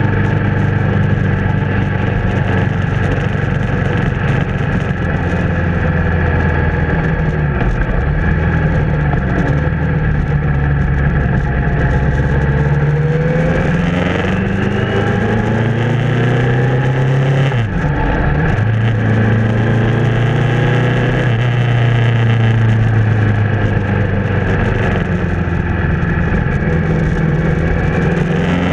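Motorcycle engine running at road speed, heard from a camera on the bike with wind rush over it. The engine pitch climbs about halfway through, drops sharply for a moment a little later, then picks up and holds steady.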